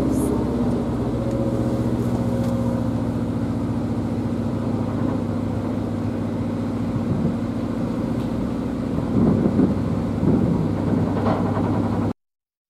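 Narrowboat's engine running steadily with a low, even hum as the boat cruises along the canal. A few louder, uneven sounds come in about nine to ten seconds in, and the sound cuts off suddenly near the end.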